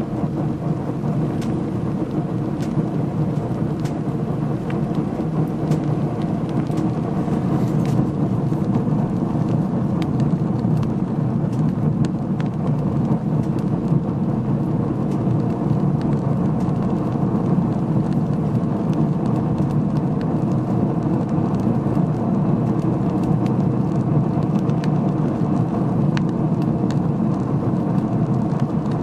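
Sawdust furnace burning hard: a steady rushing fire noise with scattered small crackles.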